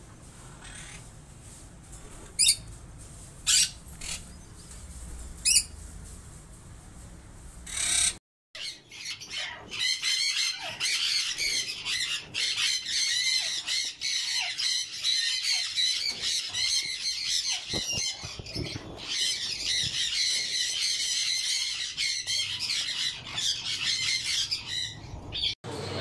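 Ringneck parakeets calling: three short, sharp squawks in the first six seconds, then, after a brief break, a dense, continuous chatter of many overlapping parakeet calls.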